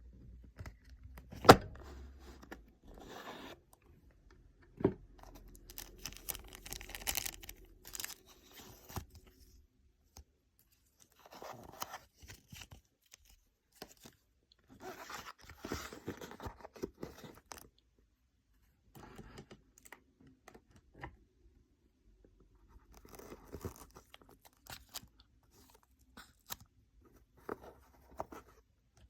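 Packaging of a reflex dot sight being handled and opened: spells of rustling, scraping and crinkling with quiet gaps between, and a sharp knock about a second and a half in, with a smaller one near five seconds.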